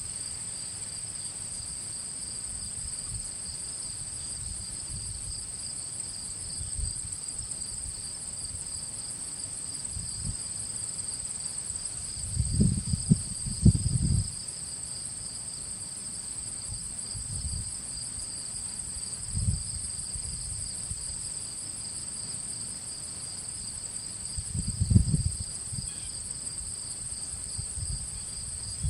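Insect chorus: a steady high-pitched drone at two pitches, with a few low gusts of wind rumbling on the microphone, the strongest around the middle and near the end.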